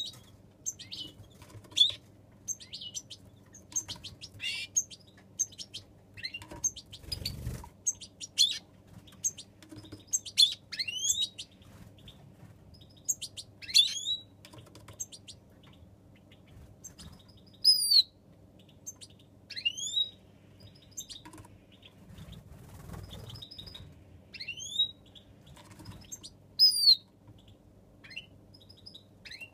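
European goldfinches, a wild-type hen and her young, calling: a running string of short high chirps and twitters, with quick rising and falling call notes and a few louder sharp calls in the second half. Wings flutter briefly twice.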